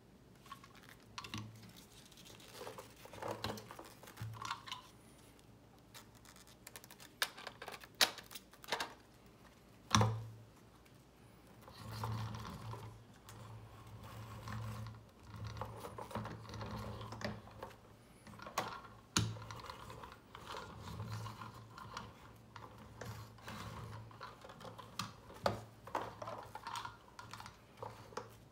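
Irregular clicks, taps and rustles of gloved hands handling a die-cast toy semi truck and trailer on a cloth, with a few sharper knocks around the middle.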